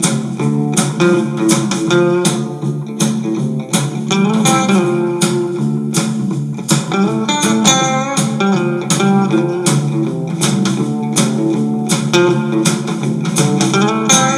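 Background music: an instrumental passage of a blues song, with guitars over a steady drum beat.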